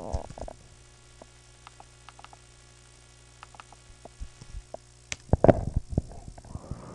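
Steady low electrical mains hum in the recording, with a few faint clicks scattered through and a cluster of louder knocks and rustles about five seconds in.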